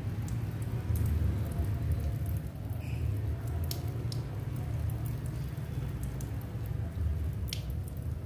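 Thin stream of water from a garden hose pattering and splashing onto a tiled floor and a cat's face and paws, with scattered sharper drips and splashes.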